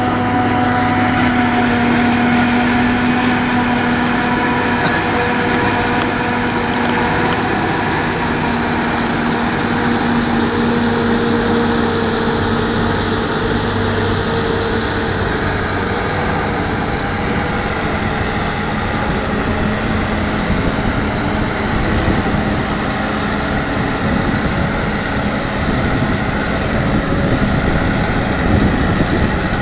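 Claas Jaguar self-propelled forage harvester chopping maize for silage: its engine and chopper running steadily under load, mixed with the John Deere tractor pulling the trailer alongside. A continuous drone with several steady held tones.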